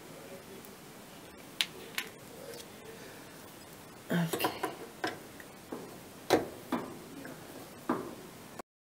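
Sharp clicks and taps of a screwdriver and wire connectors being worked on a dryer's burner-assembly wiring: a couple of single clicks, then a quick cluster about four seconds in and a loud click a little after six seconds. The sound cuts off abruptly just before the end.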